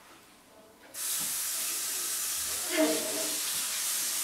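Hand shower at a salon backwash basin turned on about a second in, water spraying steadily as the hair is rinsed.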